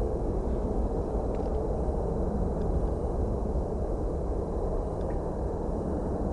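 Steady low rumble of jet aircraft engine noise, with a few faint short high ticks now and then.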